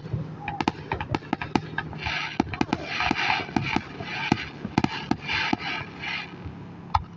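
Fireworks going off: a quick run of sharp bangs and pops, with a dense crackle from about two to six seconds in.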